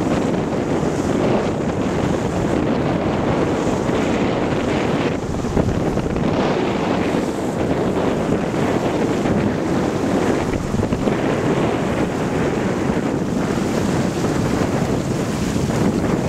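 Wind buffeting the microphone over the steady rush of water along a sailboat's hull, sailing in a 15–20 knot breeze.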